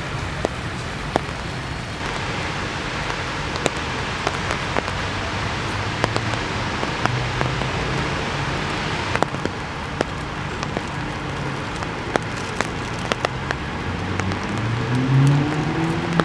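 Rain falling with many scattered drop ticks, over a low hum of road traffic; near the end a vehicle engine rises in pitch.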